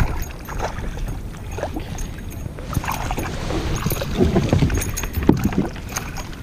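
Hooked chain pickerel thrashing and splashing at the water's surface beside a kayak, with the fishing reel being wound in.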